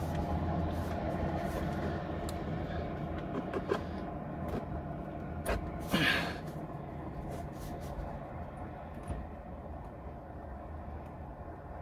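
Handling noise of a cable being pulled and fed through a school bus's metal wall panel: scattered light clicks and scrapes, with one longer scrape about six seconds in, over a steady low hum.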